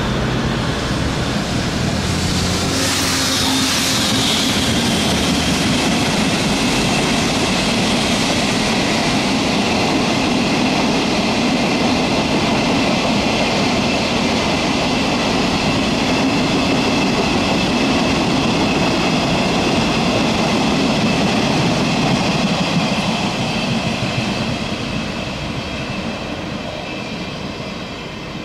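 Freight train of hopper wagons passing close by: a low hum for the first few seconds, then the steady rumble and clatter of the wagons with a thin high wheel squeal, fading over the last few seconds as the train moves away.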